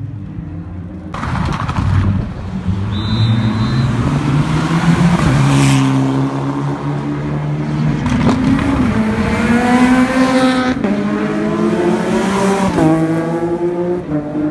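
Rally car engines revving hard on a stage, the note climbing as a car accelerates and dropping at each gear change. The sound changes abruptly about a second in and again near the end, as one car gives way to another.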